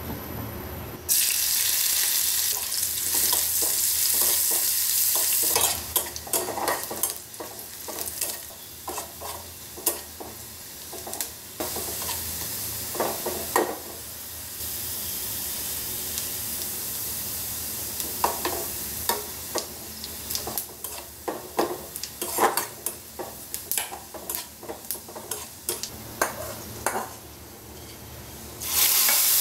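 Sliced onion frying in hot oil in a metal kadai: a loud sizzle starts about a second in, then a metal spatula scrapes and knocks against the pan in many quick strokes over the continuing sizzle. Near the end a fresh loud sizzle as the hot oil and fried onion are poured into the cooked mung dal as a tempering.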